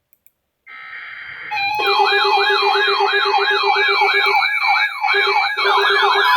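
Weather alert radio's alarm going off for an incoming warning. A short hissing burst comes about a second in, then a loud warbling siren sweeps up and down about three times a second over a rapid low beeping.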